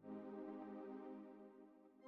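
A cinematic synthesizer hit: a sustained chord struck suddenly, then fading out over about two seconds.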